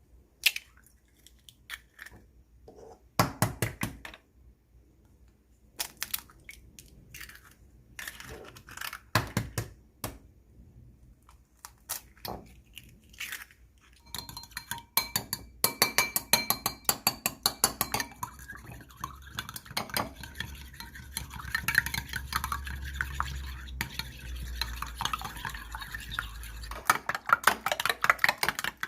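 Eggs being prepared in a bowl: scattered knocks and clinks at first, then, from about halfway through, fast steady clinking as the eggs are beaten.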